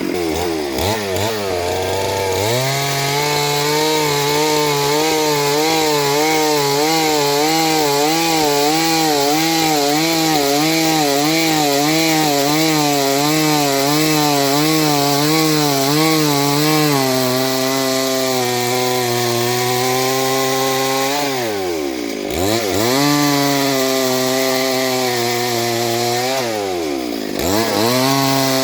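Chainsaw cutting into a Gamhar tree, its engine held at high revs with the pitch wavering under load. The revs dip and climb again about two seconds in, then drop off briefly twice in the last third before running up again.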